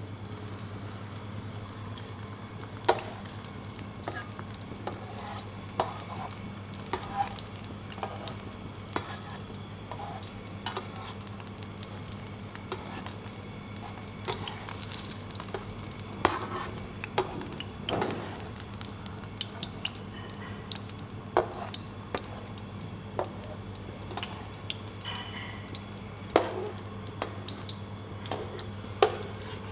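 Kitchen work: utensils and pans clinking and knocking at irregular moments, over a steady low hum.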